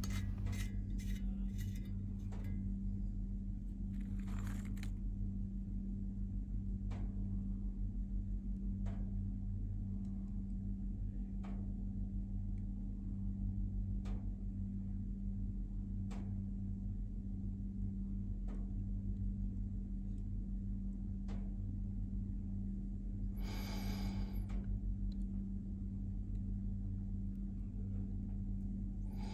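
A steady low drone on a few fixed low pitches, with faint ticks roughly every two seconds and two brief swells of hiss, one about four seconds in and a longer one near the end.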